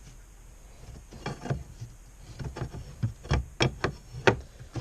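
A string of sharp metal clicks and knocks, about eight over three seconds starting about a second in, from a flathead screwdriver working the retaining clip of the oil cooler line fitting on a 1995–2005 Chevy S10 Blazer until the line pops free.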